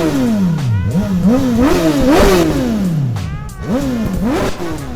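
Motorcycle engine being revved in repeated throttle blips, the pitch climbing quickly and sinking back several times, with a last rev about four seconds in that dies away near the end.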